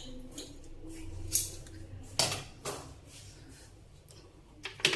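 Kitchen vessels and utensils being handled: a few separate light clinks and knocks of dishes set down or touched, spaced out over a few seconds.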